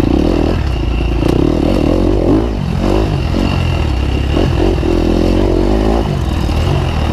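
KTM 300 two-stroke dirt bike engine revving up and down repeatedly as it is ridden hard over rough trail, with some clatter.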